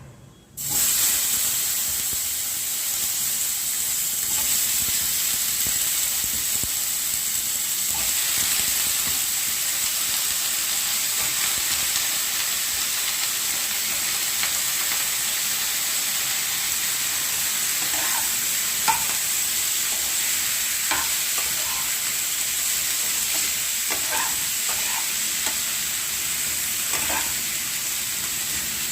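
Wet-cut brinjal pieces sizzling loudly in hot oil in a kadai, the sizzle starting suddenly about half a second in as they go into the oil. In the second half come scattered short clicks of the ladle against the pan.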